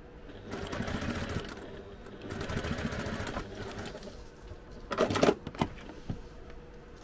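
Domestic sewing machine stitching in two short runs, basting layers of fabric together. A few sharp mechanical clicks follow about five seconds in.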